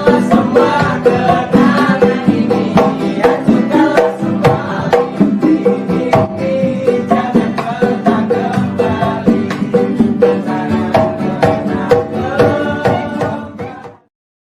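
Upbeat instrumental music with plucked strings and a steady percussion beat, cutting off suddenly near the end.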